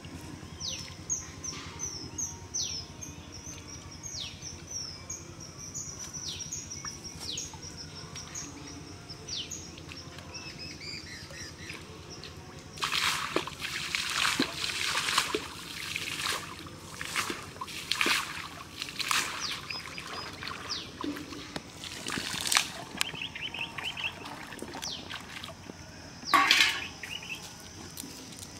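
A bird calls over and over with short falling chirps. About halfway through, pond water is splashed hard by hand several times in quick succession, about once a second, with single splashes later on.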